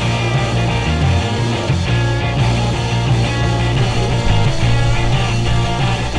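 Background rock music with a steady, loud bass line.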